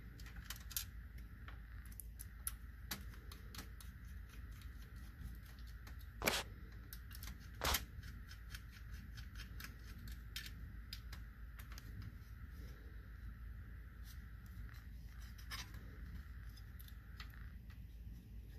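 Small clicks and scrapes of a screwdriver and screws on a black 52Pi metal case as it is handled and screwed together, with two louder knocks about six and eight seconds in.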